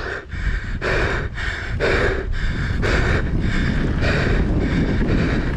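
A winded mountain biker's quick, heavy breathing after a crash, about two breaths a second, with wind buffeting the helmet camera's microphone.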